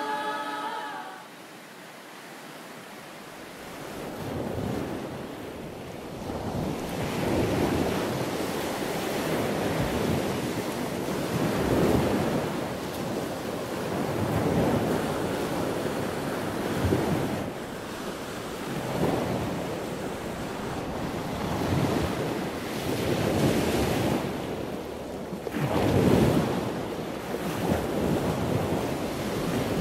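Lake surf breaking on flat sandstone ledges, coming in about three seconds in, then swelling and falling back every few seconds, with wind on the microphone.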